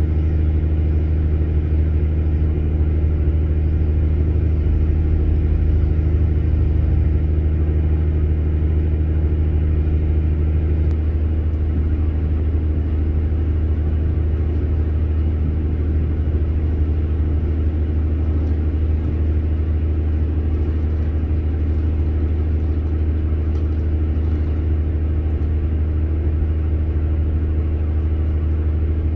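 A nearby engine running steadily, a deep low rumble with a steady hum; its tone changes slightly about eleven seconds in.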